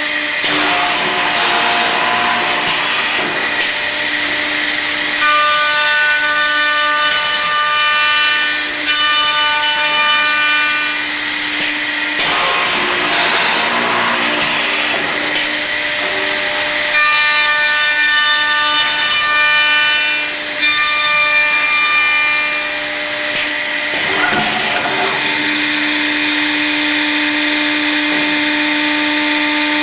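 Accu-Systems cup hinge boring and routing machine running and cutting wood: a steady loud hiss of spinning cutters, with motor whines that come and go in stretches of several seconds.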